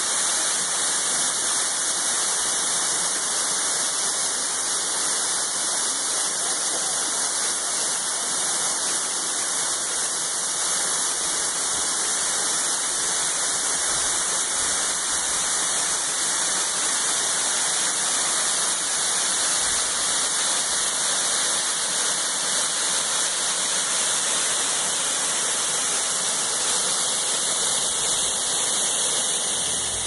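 Tall waterfall spilling down a steep rock face: a steady rush of falling water with a bright hiss, unchanging throughout.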